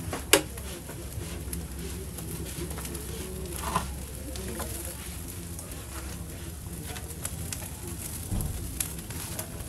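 Open fire of sticks and plastic bottles crackling, with scattered small pops and one sharp crack about a third of a second in; a bird's low cooing runs underneath.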